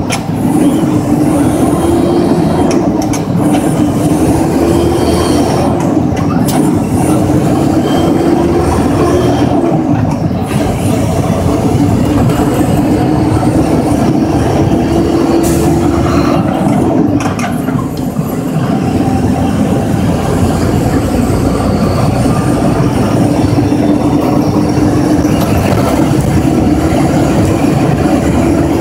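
Mack work truck's diesel engine running loud under way, heard in the cab with heavy rumble; the engine note climbs and drops back several times in the first half, then holds steadier.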